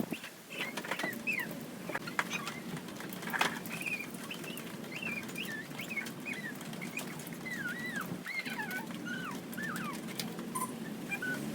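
Small birds chirping: many short, quick notes that bend up and down in pitch, over a steady low background noise, with a few sharp clicks.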